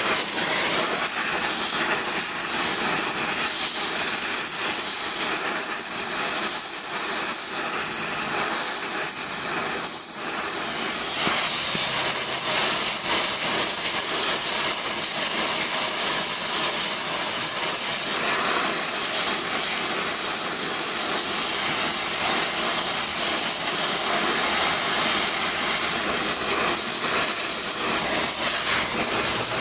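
Oxy-acetylene torch flame hissing steadily as it heats metal in a gravity ingot mold.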